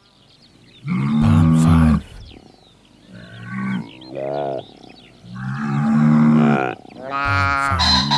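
A series of about five low, drawn-out animal calls, bellowing or lowing, with short gaps between them; the longest come about a second in and at the middle.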